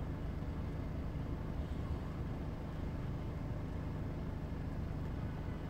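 Volkswagen Golf 6 2.0 TDI diesel engine idling steadily, heard as an even low hum from inside the cabin.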